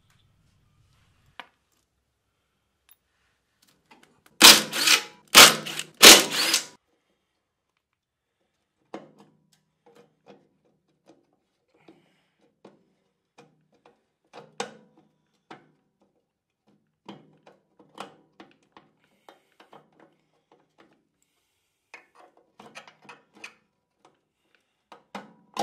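Metal parts knocking and clinking as the bearing housing and the broken-apart remains of the impeller-shaft bearing are worked off a snowblower's shaft by hand. A burst of four or five loud knocks comes about four seconds in, followed by light scattered clicks and clinks.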